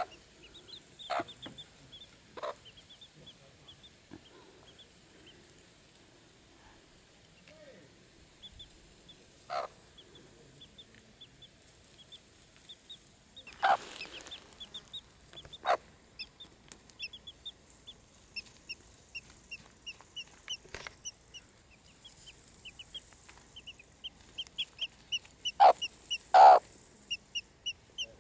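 Miniature Cochin chicks peeping in short, high cheeps that come thicker and faster over the second half, with a few brief clucks from the hen, the loudest two close together near the end.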